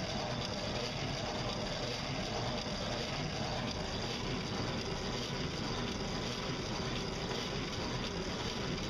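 Pedal-and-solar-powered boat under way, its pedal chain drive running with a steady mechanical noise over the wash of water and wind.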